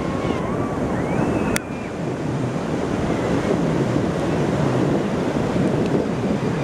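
Steady rushing noise of wind buffeting the microphone, mixed with ocean surf, with one sharp click about one and a half seconds in.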